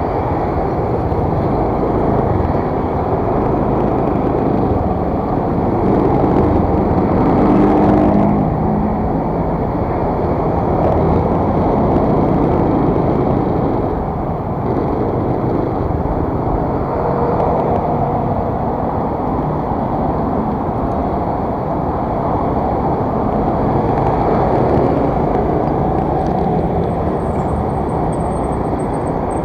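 Steady rumble of wind and road noise from riding an automatic scooter through city traffic, with the scooter's engine and passing vehicles mixed in.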